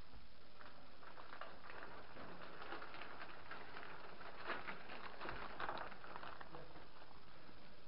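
Faint irregular rustling and scuffing of a moving player's clothing, gear and footsteps, over a steady low hiss.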